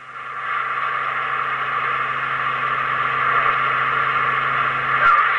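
CB radio receiver static: a steady band-limited hiss from the speaker with no station talking, under a low steady hum that cuts off with a click about five seconds in.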